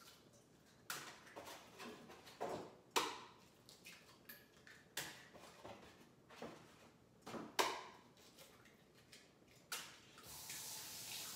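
A series of sharp knocks on a bowl, about one a second, as eggs are cracked into the bowl. About ten seconds in, a kitchen faucet is turned on and runs steadily.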